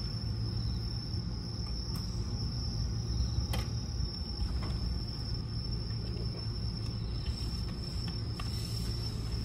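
Steady high-pitched chirring of crickets over the low, constant hum of a stopped electric commuter train standing with its doors open, with a couple of faint clicks about two and three and a half seconds in.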